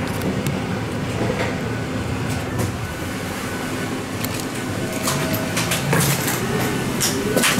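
Steady mechanical hum and rush of air inside a jet bridge beside a parked airliner, with several sharp clicks and knocks in the second half.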